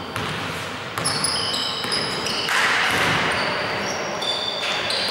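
Basketball play on an indoor court: the ball bouncing and sneakers squeaking in short high-pitched chirps on the floor, over a steady hall hiss that swells about halfway through.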